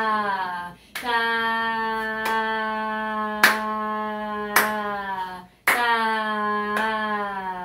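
A woman's voice singing a held "tá" on one pitch while her hands clap a steady pulse, about one clap a second. The syllable is held across four claps, broken about a second in and again about five and a half seconds in, then held across two more claps: a rhythmic-reading drill in 4/4, with whole notes sung over four beats and half notes over two.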